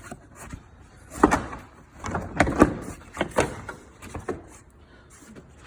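Plastic upper sight shield of a Ford F-150 being pressed and settled into place at the front of the engine bay: a series of sharp plastic knocks and clicks, a few of them louder, about a second apart.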